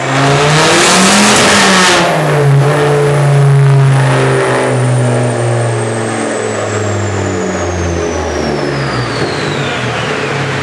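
Ford Focus ST with a very loud exhaust at full throttle on a rolling road. It cuts in suddenly and is loudest for the first two seconds. After that the engine note drops away as it slows down, with a high whine falling steadily in pitch over several seconds.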